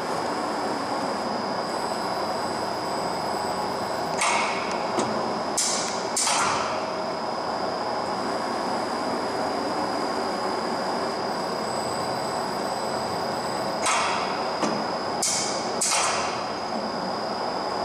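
Vanguard CAK50186di CNC lathe running under power with its chuck spinning: a steady machine hum with a constant high whine. It is broken by two groups of three short hissing bursts, about four and fourteen seconds in.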